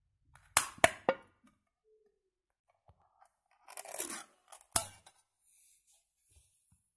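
Peel-off ring-pull seal on a metal formula tin being opened: three sharp clicks about half a second in as the ring is lifted and the seal breaks, then a crinkly tearing as the metal lid is peeled back around the rim, ending in one more sharp click.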